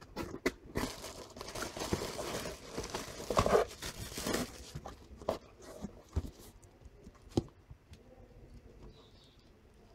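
Packaging being opened by hand: crinkling and tearing for a few seconds, followed by scattered sharp clicks and taps that thin out as the package is handled.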